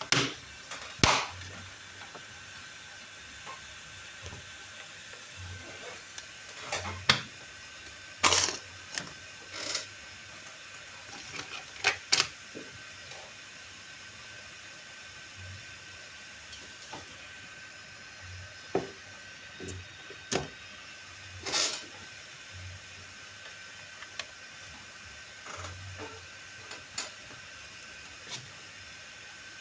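Scattered sharp clicks and knocks from handling and operating a laptop, at irregular moments, over a faint steady high-pitched hum and hiss.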